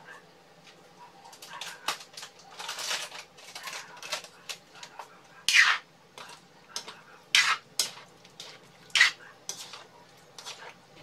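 A long-handled metal spoon stirring a thick chicken, carrot and potato stew in an aluminium wok, scraping and clinking against the pan in irregular strokes. A longer run of scraping comes a few seconds in, and the loudest clanks come after the middle.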